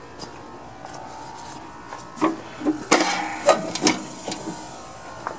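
Clunks and rattles of the brake linkage on a Snapper rear-engine riding mower as the parking brake is released. The knocks come in a cluster about two seconds in and are done by the end.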